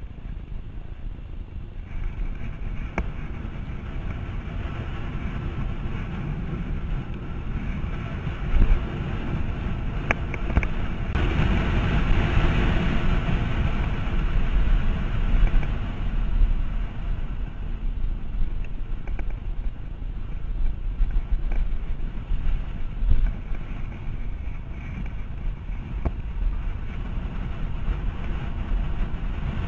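Wind rushing over the microphone of a camera on a road bike descending at speed, with a low rumble of tyres on asphalt; it swells louder about a third of the way in, with a few faint clicks.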